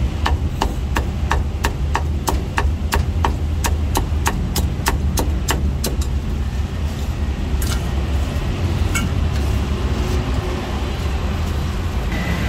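Meat cleaver chopping crispy roast pork on a thick round wooden chopping block, quick even strokes about three a second, stopping about halfway through. A steady low rumble runs underneath.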